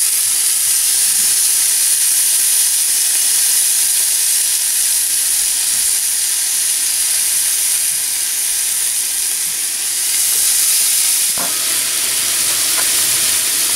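Bacon strips sizzling in a hot cast-iron Dutch oven lid as more strips are laid in: a loud, steady, high hiss of frying fat.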